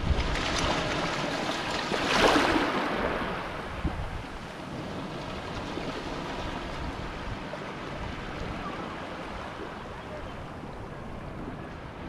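Shallow sea water washing and lapping at the shore, close to the microphone. One louder surge of water about two seconds in, then softer, steady lapping.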